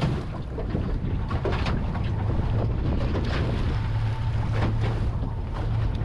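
A small fishing boat's motor running steadily at low revs, a constant low hum, with wind buffeting the microphone.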